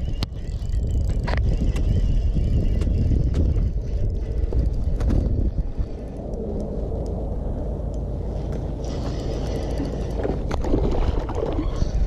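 Wind rumbling on the microphone, with rustling and scattered clicks and knocks from a jacket, gloves and a spinning reel being handled right against it while a fish is played on the rod.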